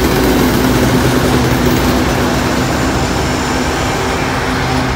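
BNSF diesel freight locomotive passing close, its engine giving a steady drone over the rumble of wheels on the rails. The loudness eases slightly near the end as the locomotive goes by and the freight cars follow.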